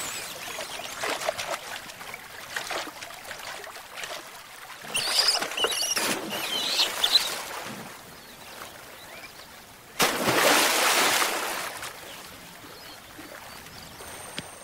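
Stream water splashing and rushing over rocks, with a sudden louder burst of splashing about ten seconds in. Short high-pitched calls come and go in the middle.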